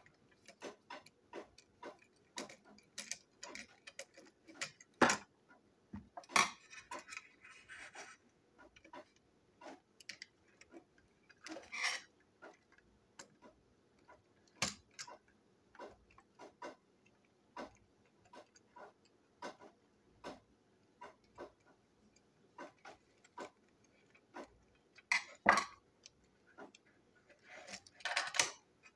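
Small clicks and taps of a metal screwdriver and fingers on the plastic chassis of a Plarail toy locomotive as it is unscrewed and taken apart, with a few louder knocks among them.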